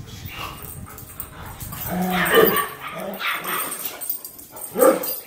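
Dog barking and yipping: a short run of calls about two seconds in and one sharp, loud bark near the end.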